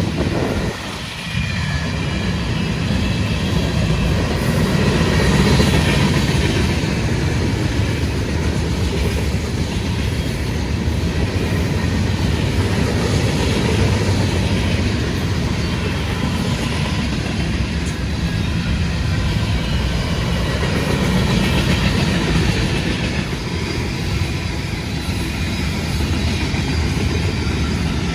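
Freight train passing, its cars rolling steadily on the rails, with a brief dip in level about a second in.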